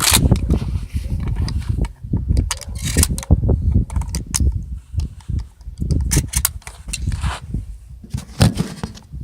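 Irregular clicks, knocks and rattles of 20-gauge slug shells being loaded into a shotgun by hand, over a low rumble of handling noise.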